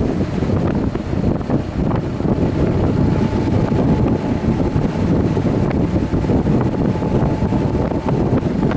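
Wind buffeting the microphone of a motorcycle-mounted camera, over the motorcycle running at a steady road speed, with a faint steady whine through the middle.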